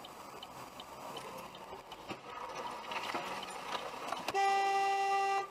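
Quiet traffic noise with a few faint knocks, then a car horn sounds one steady blast of about a second near the end.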